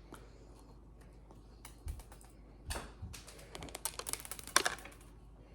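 Hands handling small candy and decorating pieces on a table: scattered light clicks and taps, with a quick run of them about four seconds in.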